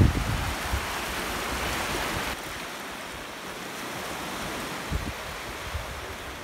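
Surf washing up onto a beach: a steady hiss of broken waves and foam. About two seconds in, it drops suddenly to a quieter wash.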